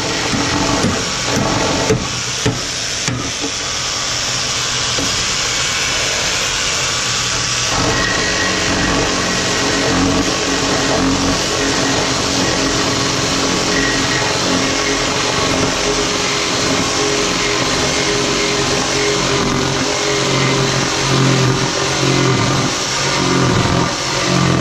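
Cordless jigsaw cutting wood, running continuously at speed.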